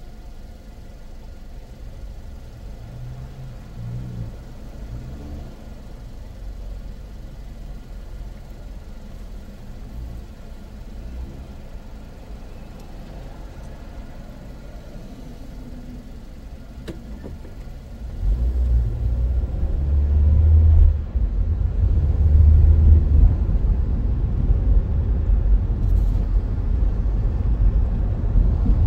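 Car engine and road rumble. A fairly quiet low rumble of traffic while waiting, then about 18 seconds in the rumble gets suddenly much louder as the car moves off and drives.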